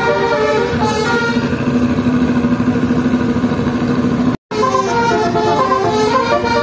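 Bus musical air horn playing a melody of stepping notes over the running engine's steady drone. The sound cuts off sharply for a moment about four and a half seconds in, then the melody resumes.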